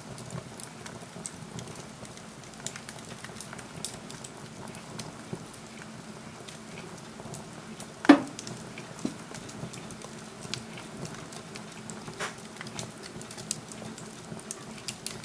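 Burned-down wood fire in a wood-burning stove crackling, with scattered small ticks, one loud pop about eight seconds in and a smaller one about four seconds later.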